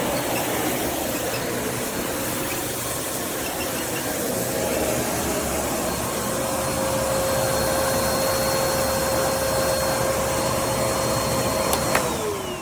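PKUYIE 1600 W bagless canister vacuum cleaner motor running steadily with a high whine. Near the end it is switched off with a click, and the motor's pitch falls as it winds down.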